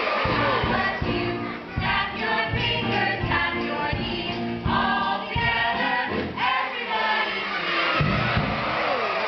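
A group of voices singing a polka in chorus over accompaniment with a steady beat.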